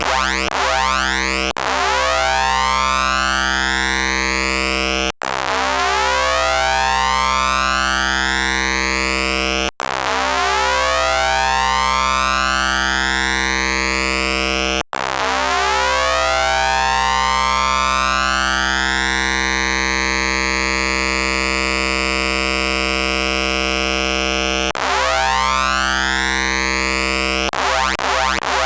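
Modular synthesizer tone: a triangle-wave oscillator bit-crushed by a Doepfer A-189-1 bit modifier and high-passed, with a looping envelope sweeping its level into the crusher, so the buzzy, stepped tone's overtones sweep upward as the waveshape changes. The sweep repeats about every five seconds with a brief dropout at each restart, runs once for about ten seconds, then restarts in quicker succession near the end.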